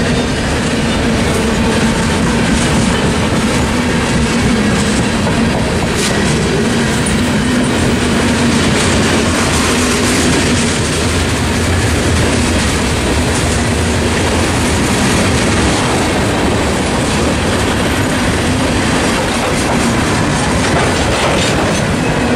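Freight cars of a long mixed freight train rolling steadily past: a continuous loud rumble and clickety-clack of steel wheels over the rails as boxcars and tank cars go by.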